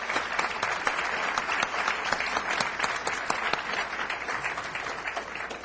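Audience applauding: dense clapping from many hands that slowly tapers off toward the end.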